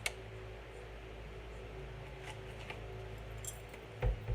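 Kitchen handling noises over a steady low hum: a sharp click at the start, a few faint light clinks in the middle, and a dull thump about four seconds in.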